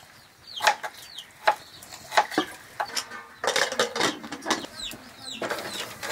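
Chickens clucking in short, sharp notes, with high falling peeps in between.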